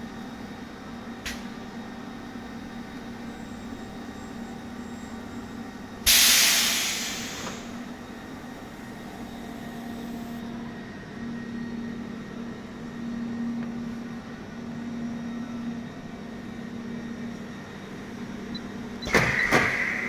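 A longitudinal TIG seam welder hums steadily. About six seconds in comes a sudden loud hiss of released air that fades over about a second and a half, and a second hiss comes near the end.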